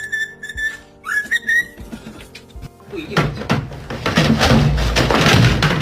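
A high whistle-like tone, held for about a second and then sounded again with a short upward slide, over background music. From about three seconds in, a loud, rough, noisy sound with a low rumble takes over.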